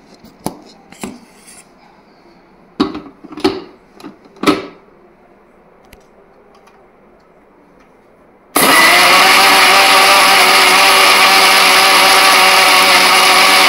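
A few knocks as the steel jar and its dome lid of a mixer grinder are fitted. About eight and a half seconds in, the grinder's motor starts suddenly and runs steadily at full speed, blending mango chunks, curd and ice cubes into a paste.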